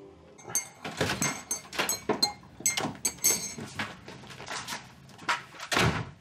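A door opening, with a quick run of irregular knocks and clatters as people come into a kitchen.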